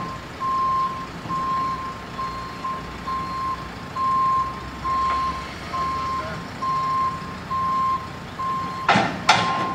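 JCB telehandler's backup alarm beeping steadily while it reverses: a single high tone switching on and off about every 0.7 seconds. Near the end, two sharp knocks close together are louder than the beeps.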